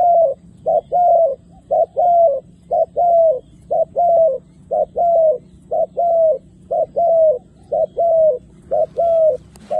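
Spotted dove cooing in a steady run of two-note coos, a short note followed by a longer falling one, about one pair a second.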